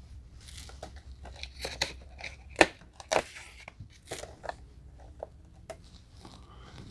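Plastic shrink wrap crinkling and tearing as it is pulled off a Blu-ray steelbook case, in irregular crackles and short rips. The two sharpest rips come about two and a half and three seconds in.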